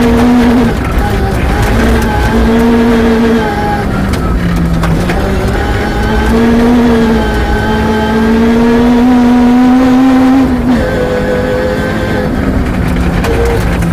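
Peugeot 306 rear-wheel-drive rally car's engine heard from inside the cabin, revving up and easing off through several gear changes. The longest pull lasts about three seconds and cuts off sharply about ten seconds in. The gravel road noise from the tyres runs underneath.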